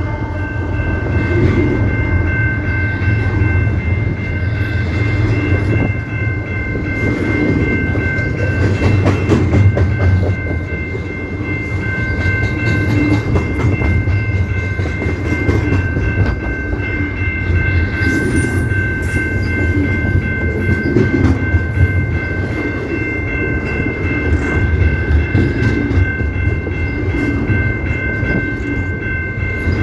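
CP Rail train rolling past: a steady low rumble and clatter of cars on the rails, with a continuous high whine held throughout. A horn chord trails off in the first second.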